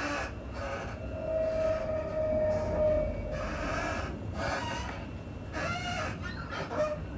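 Electric passenger train running at speed, heard from inside the carriage: a steady rumble of wheels on the track, with a held whine for a couple of seconds about a second in and a brief wavering high squeal near the end.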